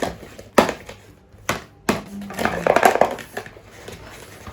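Sticky homemade glue-and-borax slime being mixed in a container. There are a few sharp knocks of the utensil against the container, then a burst of squelching and crackling as the slime is worked around the middle.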